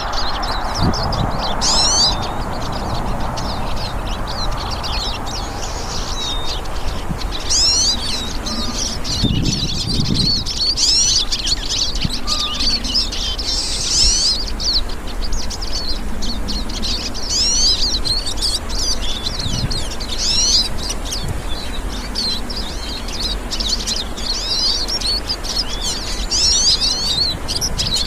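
Several hooded siskins singing together, rapid twittering phrases overlapping continuously.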